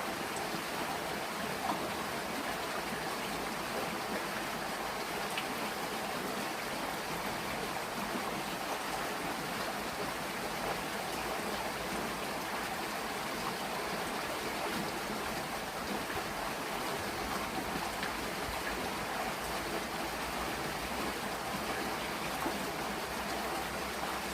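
Steady rushing of flowing stream water, with a few faint ticks.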